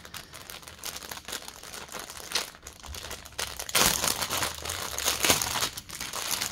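Plastic bag crinkling and rustling as it is handled, getting louder about four seconds in.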